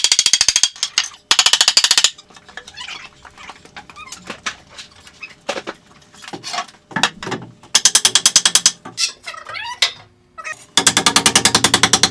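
Cordless impact driver hammering screws into wooden stall boards in four bursts of about a second each, with single knocks from handling wood in between.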